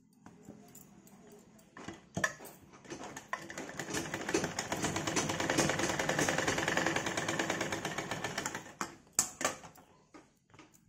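Sewing machine stitching a seam through cotton blouse fabric. The needle strokes come in a rapid, even run that starts about three seconds in and stops about nine seconds in, with a few sharp clicks just before and after.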